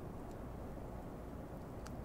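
European hedgehog eating dry kibble, with a couple of faint crunching clicks. The clearer click comes near the end, over a steady low background rumble.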